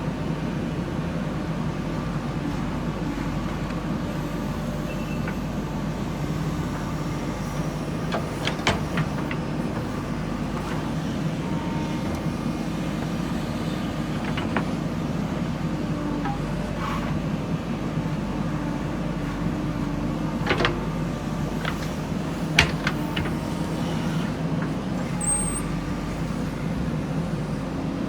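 Diesel engine of a JCB backhoe loader running steadily while it loads soil into a dump truck, with a few sharp knocks now and then.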